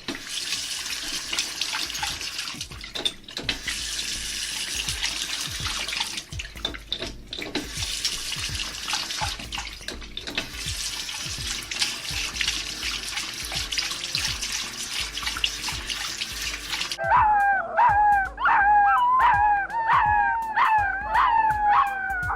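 Running or splashing water hissing steadily over a regular low thumping beat; near the end this gives way to a dog howling in a run of repeated, wavering cries.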